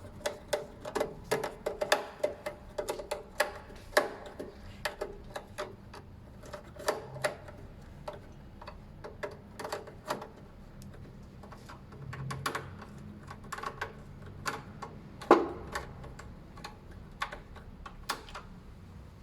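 Irregular light clicks and taps from hands working wiring at a fire alarm panel's terminals, with one louder click about fifteen seconds in.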